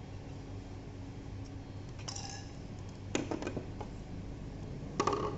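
Small tools and hard parts clicking and clinking as a VR headset is taken apart for a battery swap. There is a short scrape about two seconds in, a quick cluster of clicks a second later and a sharper clink near the end, over a steady low hum.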